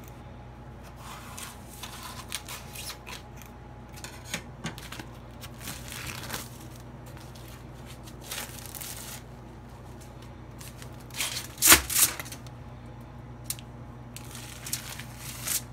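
Plastic meat packaging and paper patty separators crinkling and rustling as hamburger patties are unpacked onto a foil-lined pan, with the loudest burst of crackling a little past halfway. A steady low hum runs underneath.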